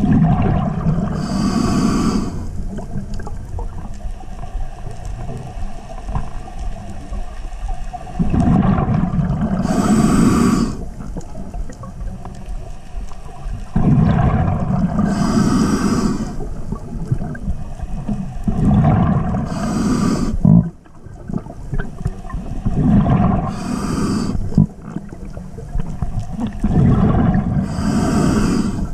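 A scuba diver breathing underwater through a regulator: about six breaths, each a rush of bubbles and regulator hiss lasting a couple of seconds, over a constant low underwater rumble.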